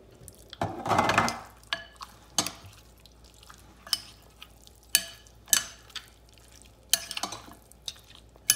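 Raw mutton being stirred and mixed with garlic paste in a ceramic bowl: a metal spoon knocking and clinking against the bowl in scattered sharp clicks, with a longer scraping stir about a second in.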